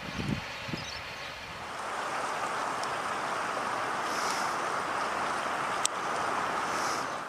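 Low, irregular thumps in the first second, then a steady rushing noise that sets in about a second and a half in and fades just before the end, with one sharp click about six seconds in.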